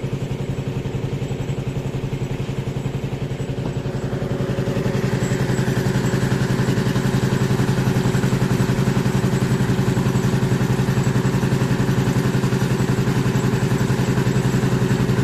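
Engine of a concrete mixer running steadily with an even chugging pulse, getting louder about four to five seconds in.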